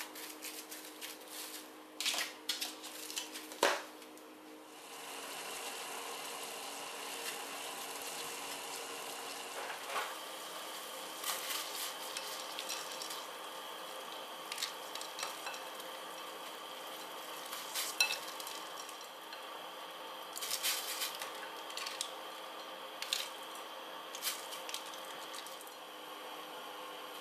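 Cling film crinkling as it is pressed over a container of fish paste, then water boiling steadily in a stainless steel saucepan over a faint steady hum, with occasional sharp knocks and splashes as fish balls are dropped in.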